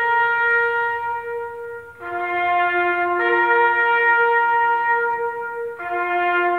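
Brass band playing a slow march in long held chords, dropping away briefly about two seconds in and again near the end before the next chord enters.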